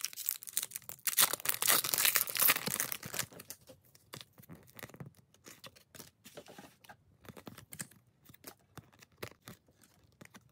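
A 1993-94 Skybox trading card pack's wrapper being torn open by hand, with crinkling, for about the first three seconds. After that come quieter scattered clicks and snaps as the cards are flipped through one by one.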